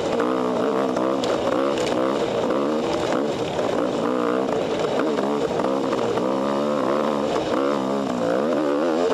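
Husqvarna two-stroke dirt bike engine, heard from the rider's own bike, revving up and down over and over as the throttle is worked on a rough trail.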